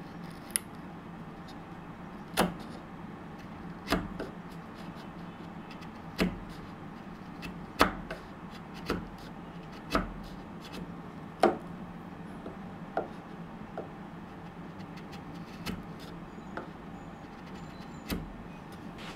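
Bevel-edge chisel pushed down by hand into the end-grain waste of a dovetail socket, each cut giving a short, sharp crack as the wood fibres sever; about a dozen cuts at irregular intervals of one to two seconds, over a faint steady low hum.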